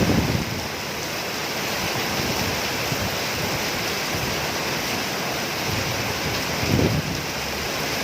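Heavy rain falling in a steady, dense hiss. A brief low rumble comes at the very start and again about seven seconds in.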